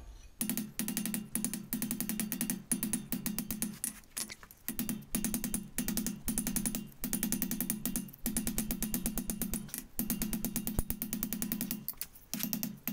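Very rapid metallic hammer strikes in bouts of a second or two with short pauses between them: a ball peen hammer cupping the hot steel bowl of a small spoon into a hole in a bolster plate on the anvil.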